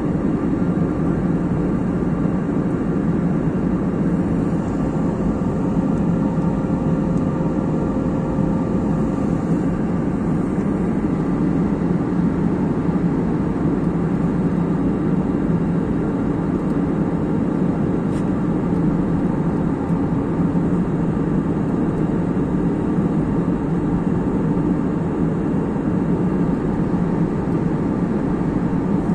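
Steady cabin noise of an airliner in cruise flight, a constant low rumble of engines and airflow heard inside the cabin, with faint steady tones above it.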